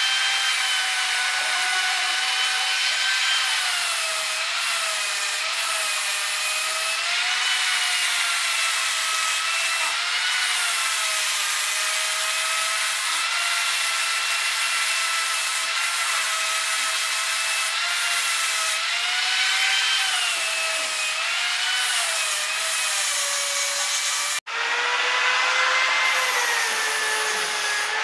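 Angle grinder with a buffing disc running against stainless steel: a steady motor whine over a gritty hiss, its pitch sagging and rising as the disc is pressed and eased on the metal. It cuts out for an instant near the end and comes back at a lower pitch.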